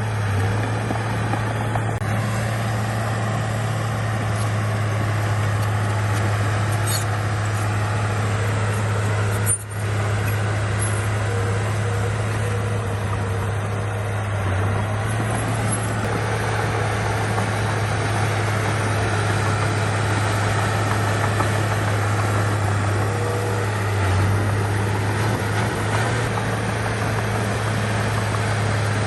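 Heavy diesel engine of a bulldozer running steadily under work, a constant low drone, with a momentary break about ten seconds in.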